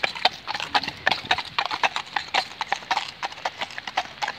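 Two shod police horses walking on a wet paved path: a quick, irregular clip-clop of overlapping hoofbeats.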